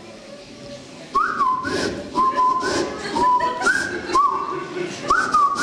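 A whistled tune, starting about a second in: about five short phrases, each swooping up and then settling on a held note.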